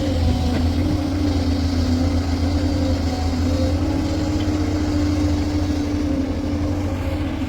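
Heavy diesel engine of earthmoving machinery running steadily, a constant low rumble with a steady hum above it.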